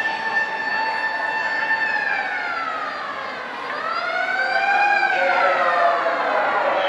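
An emergency vehicle's siren wailing: a held tone that slides down, climbs again about halfway through, and starts to fall once more near the end.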